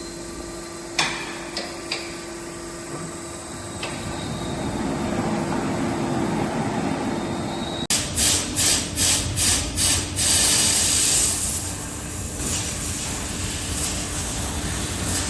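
Industrial machinery humming steadily, with a few sharp clicks, then about eight seconds in six quick blasts of air hiss, about three a second, followed by a longer hiss, like compressed gas being released.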